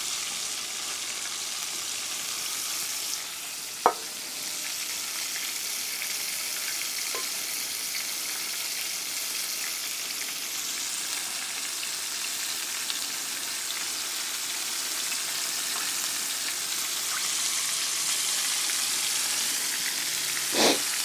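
Flour-battered pork steaks deep-frying in a pan of hot oil: a steady sizzle, with one sharp click about four seconds in.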